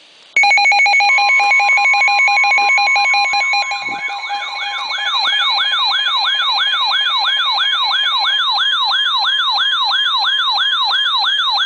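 Weather radio receivers sounding a flash flood warning alert. Rapid pulsing electronic beeps start at once, and a steady tone joins about a second in. From about four seconds in, a warbling siren of roughly three sweeps a second comes in over them. The beeps fade out before the siren and steady tone stop together.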